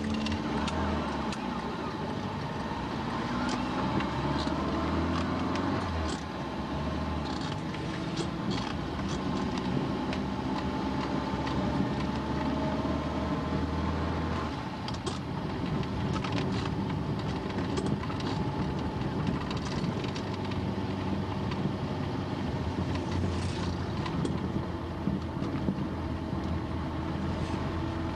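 Car engine and road noise heard from inside a moving car. The low engine hum is steady and its pitch shifts a few times, with scattered small clicks and rattles over it.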